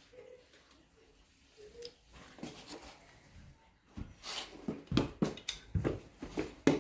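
Quiet for a few seconds, then a run of irregular knocks and clicks starting about four seconds in.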